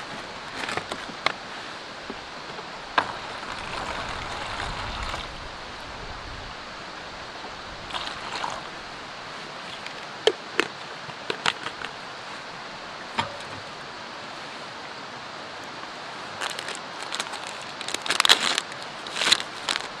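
Hands handling camp gear and food packaging: scattered small clicks and light knocks, and several bursts of rustling, the loudest near the end, over a steady background hiss.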